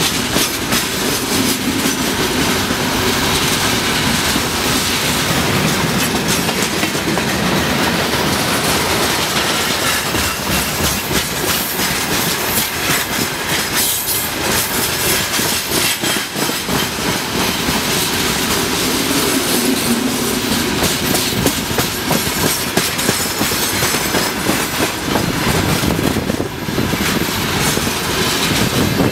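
Freight train's open-top gondola wagons rolling past close by: steady rumble of steel wheels on rail, with repeated clickety-clack as the wheelsets cross rail joints.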